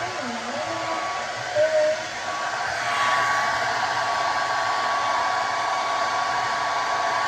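Conair 1875 hand-held hair dryer running steadily as it blows hair dry: a steady rush of air with a thin, even whine. It gets louder about three seconds in as it is turned onto the hair, with a few short wavering tones over it in the first two seconds.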